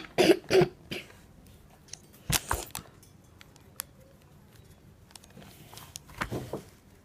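A person coughing in short bursts: at the start, about two and a half seconds in, and again near the end, with faint light ticks in between.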